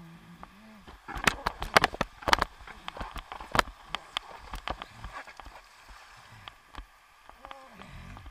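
Water splashing and sloshing against a board-mounted camera as a rider paddles a board through the shallows. There is a dense run of sharp splashes in the first few seconds and lighter lapping after. Brief low vocal sounds come at the start and near the end.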